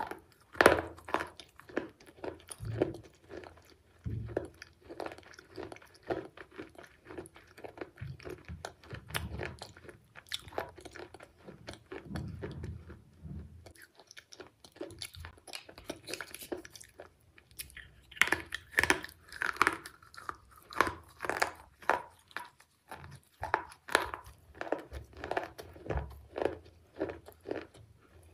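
Close-up biting and crunching of brittle baked-clay shards, a steady run of sharp crackles as they are chewed. The crunching eases off about halfway through, then comes back louder.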